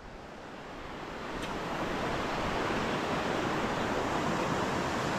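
A steady outdoor rushing noise, like wind or flowing water, that swells over the first two seconds and then holds steady. A single faint click comes about a second and a half in.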